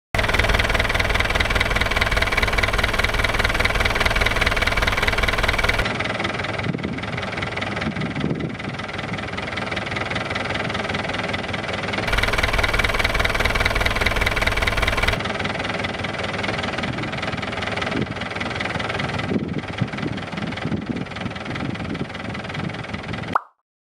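Inboard marine diesel engine idling with a steady diesel clatter, in several recordings spliced together that change abruptly about 6, 12 and 15 seconds in. The segment from about 12 seconds in is the engine after a hydrogen carbon-cleaning, after which the rattling is said to be reduced.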